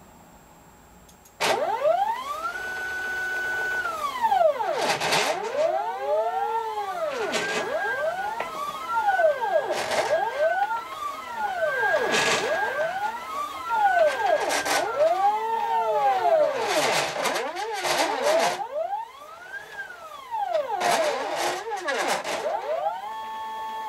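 Stepper motors of a homemade plywood CNC router driving the axes along threaded rods. Their whine sweeps up and down in pitch over and over as the axes speed up and slow down, starting abruptly about a second and a half in, with short hissing rasps mixed in.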